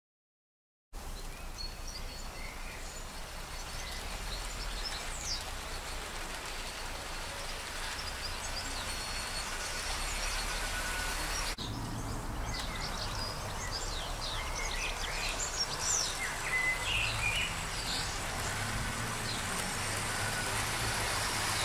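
Silent for about a second, then garden ambience: birds chirping and tweeting over a steady low rumble, the birdsong busier in the second half.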